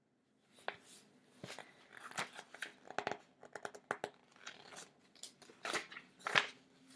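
Pages of a large softcover book being turned and the book handled: a run of irregular paper rustles, flaps and crackles, starting about half a second in.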